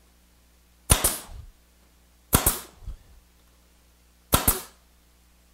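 Grex 1850GB 18-gauge pneumatic brad nailer firing three times, driving brads into plywood: three sharp double cracks about a second and a half to two seconds apart.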